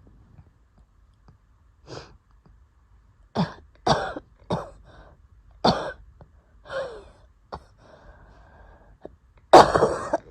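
A woman coughing during an asthma attack: a run of short, harsh coughs, a few seconds apart at first and then quicker, with a drawn-out wheezy breath in between and the loudest coughing burst near the end.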